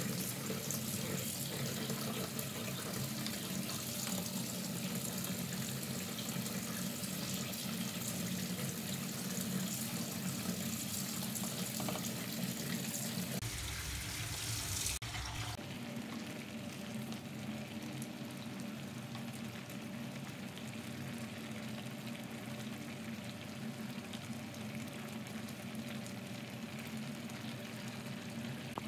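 Chicken in coconut-milk sauce boiling in a frying pan: a steady bubbling hiss. About halfway there is a short break, and after it the sound is a little softer.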